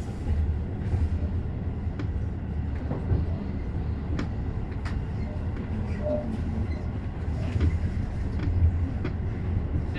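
Electric commuter train running along surface track, heard from inside the front car: a steady low rumble with a sharp click about once a second from the wheels passing over rail joints.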